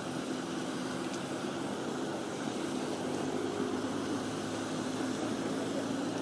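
Pond aerator running: a steady motor drone with a low, even hum and a haze of churning water.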